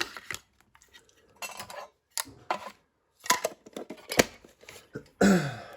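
Metal Pokémon collector's tin being handled: a run of clinks and clatters from the tin and its lid, mixed with short rustles of packaging. Near the end comes a louder clatter with a tone that falls in pitch.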